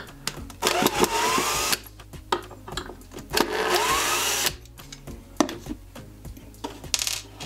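Cordless screwdriver driving self-tapping screws through a furniture hinge's mounting plate into a chipboard cabinet door: two runs of about a second each, the motor whine rising as it spins up, with small clicks between them and a brief third run near the end.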